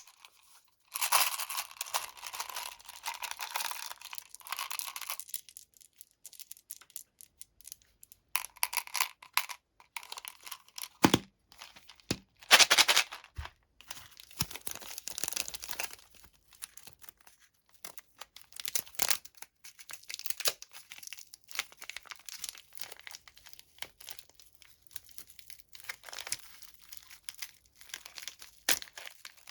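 Plastic candy wrappers torn open and crinkled by hand in irregular bursts of rustling, the longest early on and the loudest about halfway, with a short knock just before it.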